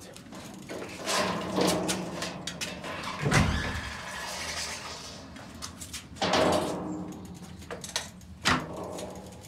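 A bicycle being handled and turned around by hand: a run of knocks, rattles and clicks. Louder thumps come a little over three seconds in, about six seconds in and near the end.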